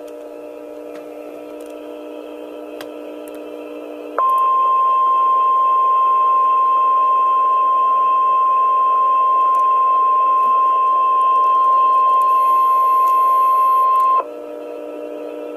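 NOAA Weather Radio 1050 Hz warning alarm tone: a single loud, steady high tone that starts about four seconds in, holds for about ten seconds and cuts off abruptly. It signals an Emergency Alert System warning, here a severe thunderstorm warning. Before and after it, only a faint steady hum from the radio broadcast.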